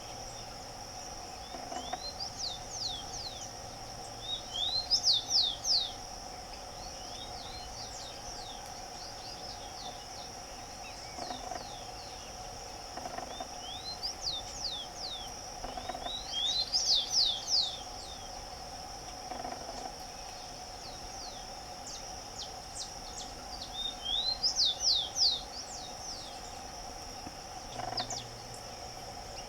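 Rufous-collared sparrow singing: three short song phrases of sharp, high whistled notes, about ten seconds apart, over a steady high insect drone.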